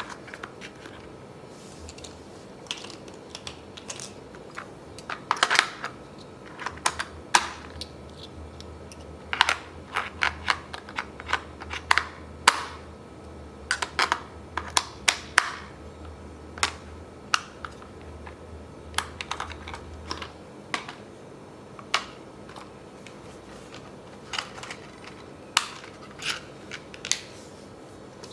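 Irregular sharp clicks and taps of hands handling a toy remote control car and its packaging, with a faint low hum underneath for much of the time.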